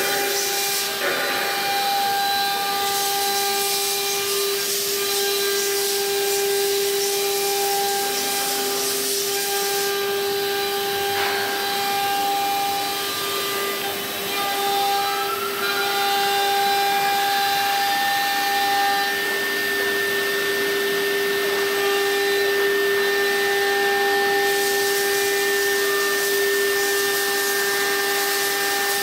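Two-spindle CNC wood router running and cutting wood: a steady high spindle whine over a constant cutting hiss. Around the middle, one tone glides upward and then holds steady.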